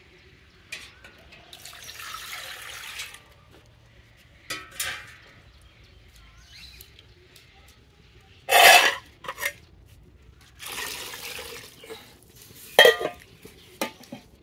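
Water poured from a steel tumbler into a large aluminium pot of curry base, splashing in several pours, with sharp clinks of steel vessels near the end.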